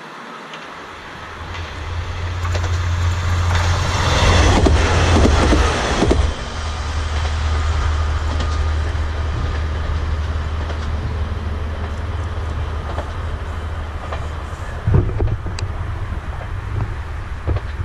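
Kanto Railway diesel railcar passing: a low engine drone builds, loudest about four to six seconds in with wheel and rail noise, then carries on steadily as the train runs on. Two short knocks near the end.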